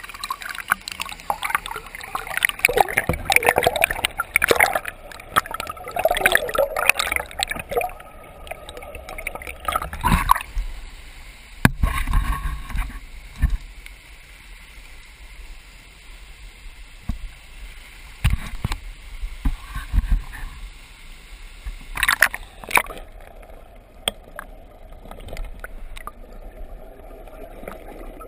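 River water gurgling and splashing right against a camera held at the surface of a rocky stream, with a few sharp knocks around the middle. Toward the end the camera goes under and the sound turns muffled.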